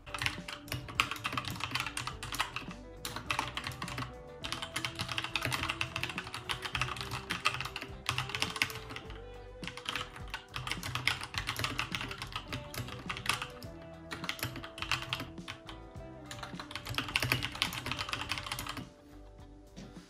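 Fast typing on a Keychron K2 mechanical keyboard with Gateron switches: dense runs of key clicks in bursts with short pauses, stopping about a second before the end. Background music plays under the typing.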